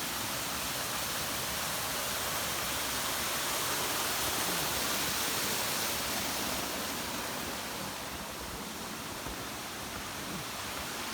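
Steady rushing of flowing water from a stream, an even hiss without breaks, slightly louder in the first half.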